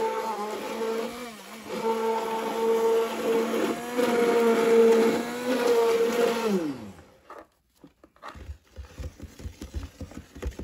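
Sunbeam immersion blender running in a bowl of thick homemade liquid soap, a steady motor whine that dips briefly about a second and a half in. About seven seconds in it falls in pitch and stops, and faint handling knocks follow.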